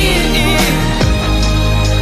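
Music: a love song playing, with held notes over a steady bass in the gap between the singer's lines.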